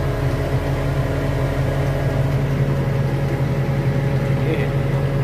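Tractor engine running steadily, heard from inside the cab as a constant low drone.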